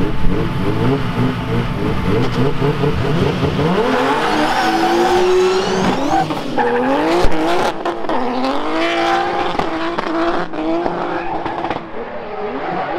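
Drift car engine running at a lower, steadier note for the first few seconds, then revving hard with its pitch sweeping up and down again and again as the car slides, with tyre squeal.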